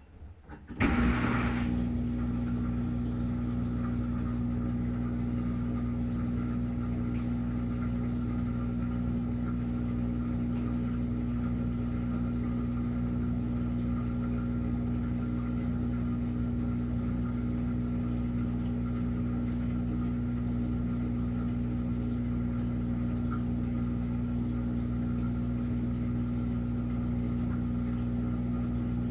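A washing machine starts up about a second in and then runs with a steady hum.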